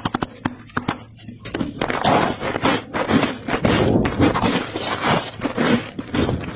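Thick freezer frost being crushed and squeezed, giving squeaky, crackling crunches in a dense irregular run. It is lighter at first with a few quick clicks, then denser and louder from about two seconds in.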